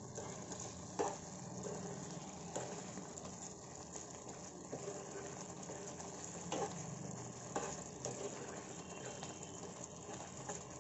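Thick tomato and green-leaf curry sizzling and bubbling in a kadai while a metal spoon stirs it, with a few sharp clicks of the spoon against the pan.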